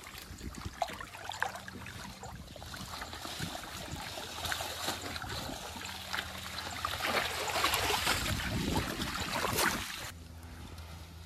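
Pond water splashing and sloshing as a fishing net is hauled through it, with many small irregular splashes. It builds over several seconds and cuts off suddenly near the end.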